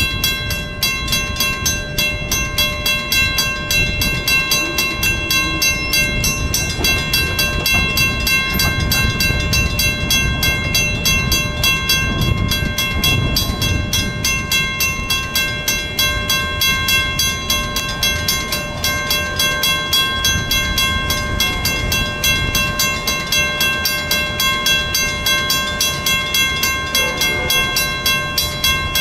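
Railroad crossing warning bell ringing in a rapid, steady, even rhythm, the sign that the crossing is activated for an approaching train. A low rumble rises and falls beneath it in the middle.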